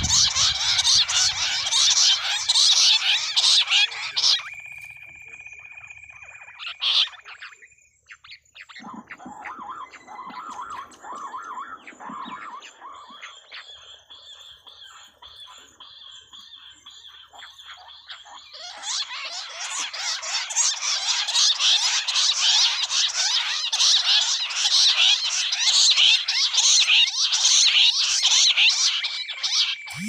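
A covey of bush quail calling together in a dense, rapid chattering chorus, loud for the first few seconds, dropping to scattered calls, then rising again in a longer burst about two-thirds of the way through.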